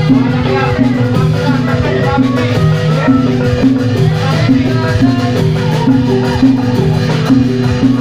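Loud live Javanese gamelan music for a Jathilan horse dance: a steady, repeating pattern of pitched notes over drumming.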